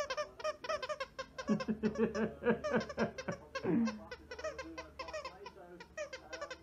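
Squeaky plush dog toy squeaking in quick, repeated squeaks as a Yorkshire terrier chews it. A person laughs for a couple of seconds in the middle.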